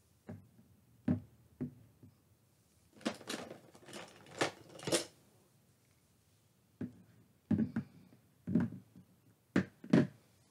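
Toy figures being set down one after another on a paper-covered tabletop: a series of light knocks and taps, with a busier patch of scraping and rustling about three to five seconds in.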